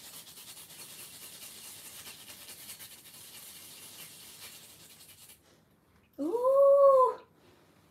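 Fresh wasabi root being grated on a small handheld grater: a steady fine rasping for about five seconds. Near the end, one loud pitched vocal sound about a second long, rising then falling in pitch.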